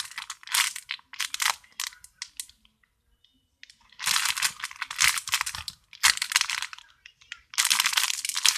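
Plastic packaging crinkling and rustling in irregular bursts as a squishy toy is handled in its wrapper, with a pause of over a second near the middle.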